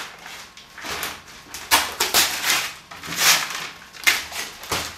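Scissors cutting packing tape on a cardboard shipping box, with the cardboard scraping and rustling as it is worked open, in several short noisy strokes.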